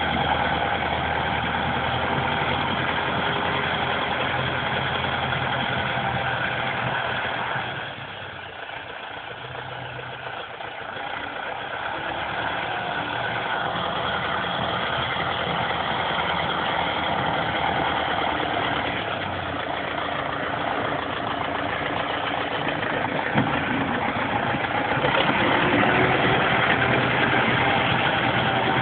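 Tractor diesel engine running while pushing snow with a front blade. It drops back about eight seconds in and builds up louder again near the end, heard thin through a phone's microphone.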